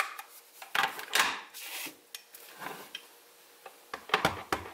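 Craft supplies being handled, with small clicks and rubbing, then a run of quick taps near the end as a rubber stamp is patted onto an ink pad.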